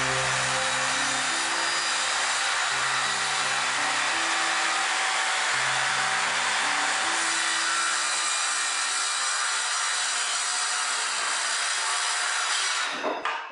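A power tool running steadily on wood, an even loud noise that stops abruptly near the end. Quiet background music plays underneath for the first half.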